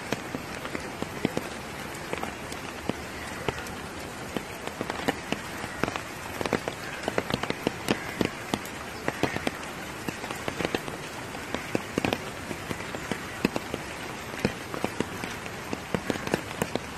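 Heavy monsoon rain falling on a flooded street: a steady hiss with frequent sharp taps of drops close to the microphone.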